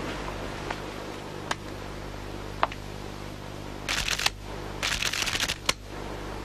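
A deck of playing cards shuffled by hand: two quick riffles, each a brief rapid run of flicking cards, after a few faint single clicks.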